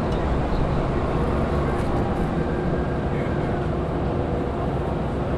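A large engine running steadily, a low even hum with no change in pitch or level.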